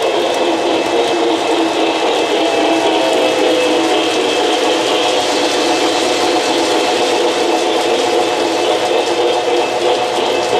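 O-gauge model trains running on three-rail track: a steady whir of the locomotive motors, with several held tones, over the rattle of the cars' wheels on the rails.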